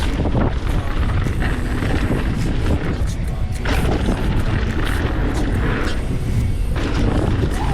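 Background music with a heavy low end.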